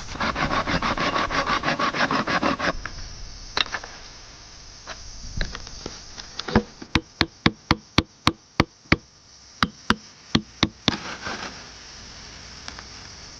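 Wood being worked by hand. For the first two and a half seconds there are fast rasping strokes, about nine a second. After a pause, a run of sharp knocks on wood follows, about three a second.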